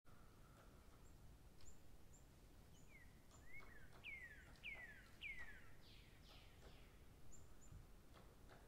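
Faint bird song: a run of downward-slurred whistled notes, a little under two a second, starting about three seconds in and fading out about four seconds later. Faint rustle and taps of workbook paper pages being turned lie underneath.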